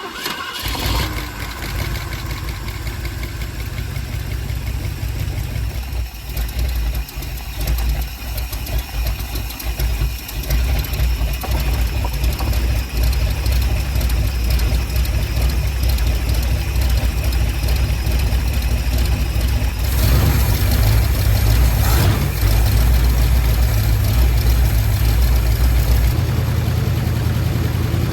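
Ford 390 FE V8 with a Holley four-barrel carburetor running at a steady idle just after starting; it gets louder about twelve seconds in and again about twenty seconds in.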